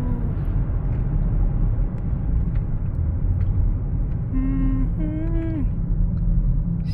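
Steady low rumble of a car's engine and road noise while driving in slow traffic, heard from inside the car.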